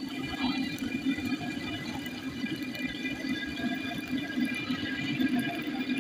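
Fish deep-frying in a karahi wok of hot oil, bubbling and sizzling steadily.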